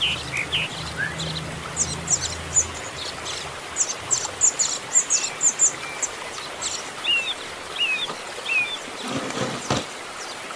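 Canary chick begging to be fed: a rapid run of short, high chirps, in bunches with brief pauses. A brief rustle or knock comes near the end.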